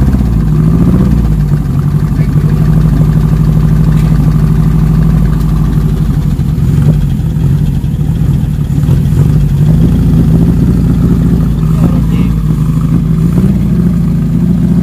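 Mitsubishi Colt T120 pickup's engine running steadily through an aftermarket exhaust, its revs rising briefly near the end.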